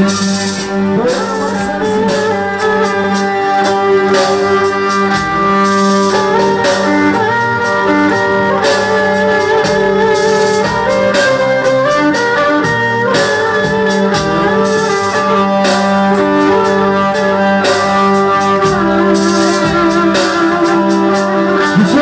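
Live street dance music: a davul drum beating under a melody instrument that plays over a steady held drone note.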